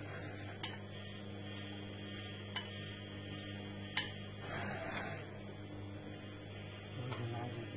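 A few light clicks and clinks of a utensil against a bowl, scattered over a steady low hum; the busiest clinking comes a little past the middle.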